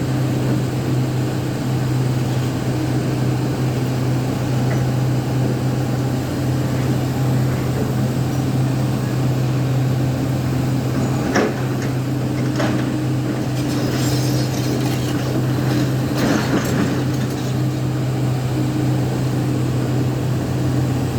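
JCB 3DX backhoe loader's diesel engine running steadily under work, with a few sharp metal knocks and rattles about halfway through.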